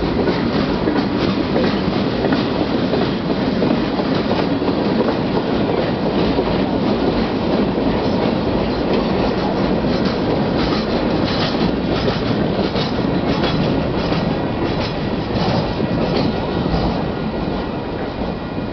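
Freight train's boxcars rolling past close by: a steady rumble of steel wheels on rail with a rapid, irregular clatter of clicks as the wheels pass, easing slightly near the end.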